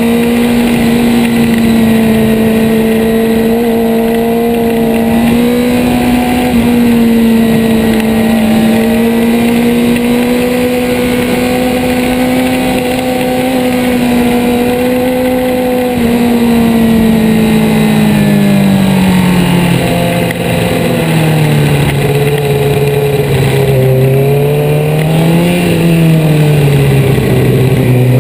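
Suzuki GSX-R 600's inline-four engine running at a steady high pitch under constant throttle, then dropping in pitch as the bike slows. Near the end there is one brief rise and fall before it settles lower. Steady wind rush underneath.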